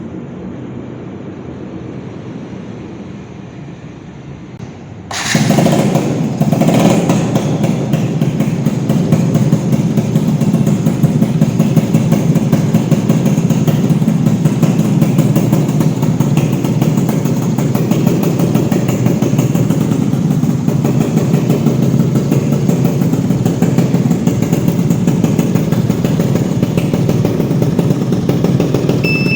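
Rebuilt Yamaha Alfa motorcycle's two-stroke engine running. The sound jumps suddenly much louder about five seconds in and then stays loud and steady.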